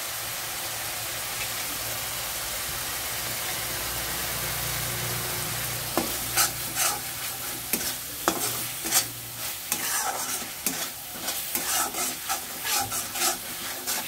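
Spice paste sizzling as it fries in a metal kadai. From about six seconds in, a steel spatula scrapes and knocks irregularly against the pan as the masala is stirred.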